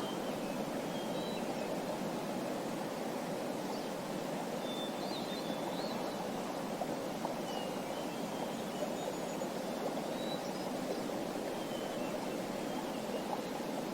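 Nature ambience: a stream's running water rushing steadily, with small birds chirping faintly every second or two.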